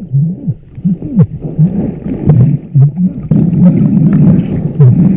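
Muffled underwater gurgling and bubbling, heard through a camera held under the surface, in rapid low pulses that rise and fall in pitch, with scattered sharp clicks.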